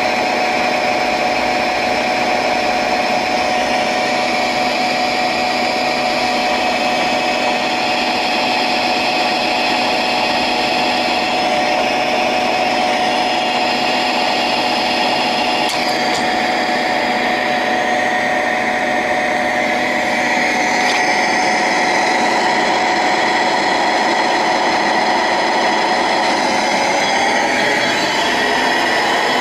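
Vectrax GS-20V vertical milling machine running under power: a steady mechanical whine from the head, its tones shifting slightly upward near the end.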